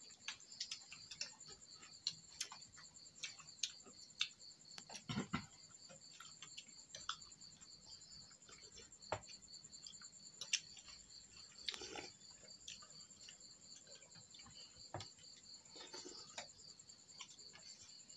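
Night insects, crickets by their sound, keeping up a faint, steady pulsing trill. Scattered light clicks and taps of spoons and chopsticks against porcelain bowls come in over it.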